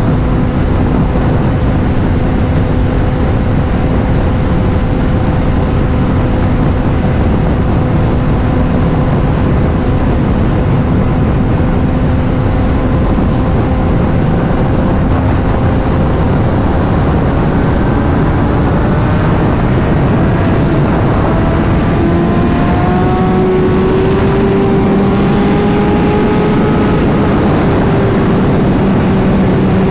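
Honda CBR600RR's inline-four engine running while riding, over a steady rush of wind and road noise. The engine note holds steady, then climbs gradually in pitch about halfway through as the bike accelerates, and levels off near the end.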